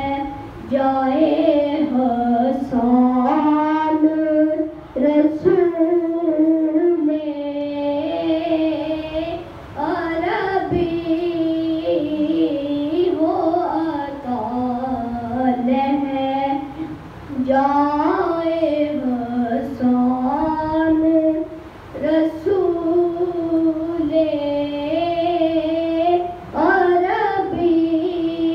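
A boy singing a devotional recitation solo and unaccompanied into a microphone, in long phrases with a wavering, ornamented pitch, broken every few seconds by short pauses for breath.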